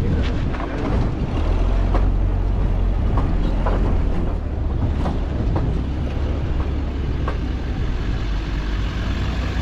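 Nodwell tracked carrier's engine running under load through soft sand: a steady deep rumble that swells about a second and a half in, with scattered knocks and rattles.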